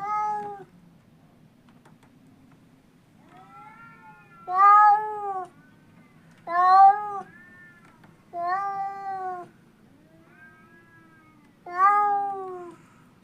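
A cat meowing repeatedly: five loud meows, each under a second and rising then falling in pitch, with fainter meows between them.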